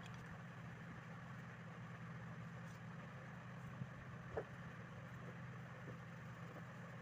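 Faint, steady low background hum, with one brief high squeak about four and a half seconds in.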